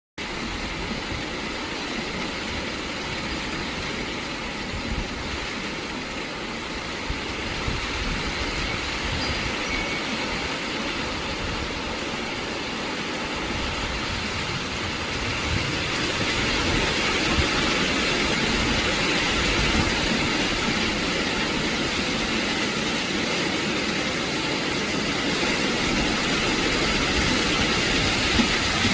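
Monsoon rain falling steadily: an even hiss that grows louder about halfway through.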